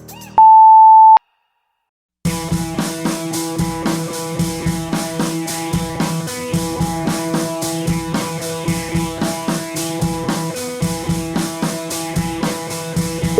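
A single loud, long electronic timer beep, then about a second of silence. Background rock music with drums, bass drum and guitar then starts and carries a steady beat.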